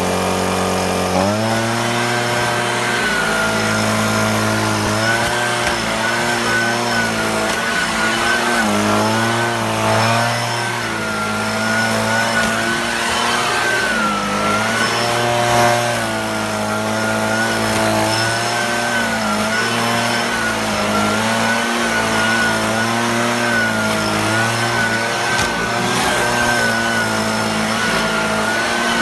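Small engine of a handheld leaf blower running. It steps up in pitch about a second in, then runs steadily with its pitch wavering slightly up and down.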